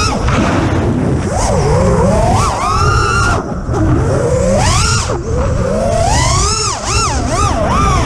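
FPV quadcopter's brushless motors whining, the pitch swooping up and down quickly with the throttle and dropping out briefly twice, over a steady wind rumble on the onboard camera's microphone.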